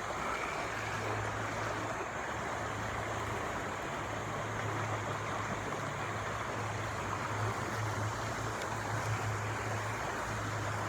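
Shallow, fast-moving river water rushing over rocks, a steady even wash, with a steady low hum under it.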